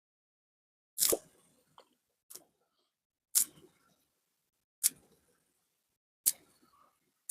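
Five short, sharp clicks or crunches, about a second and a half apart, with silence between.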